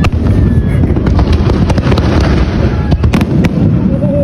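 Fireworks display: a continuous heavy rumble of shell launches and bursts, with sharp cracks several times and a few faint whistles from rising shells.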